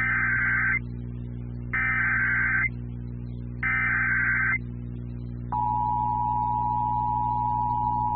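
Emergency Alert System SAME header: three bursts of buzzy digital data tones, each about a second long and about a second apart. About five and a half seconds in, the steady single-pitch 1050 Hz NOAA Weather Radio warning alarm tone starts, signalling that a warning message is about to be broadcast.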